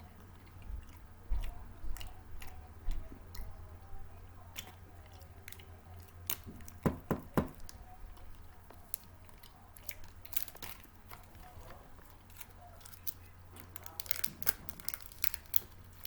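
Someone chewing and crunching snack food close to the microphone: scattered crisp crunches and clicks, with a dense cluster about seven seconds in and another near the end. A low steady hum runs underneath.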